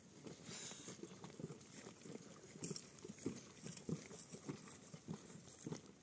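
Footsteps of people walking with a donkey on a dry, stony dirt path: an uneven run of soft knocks and scuffs from feet and hooves on loose rock.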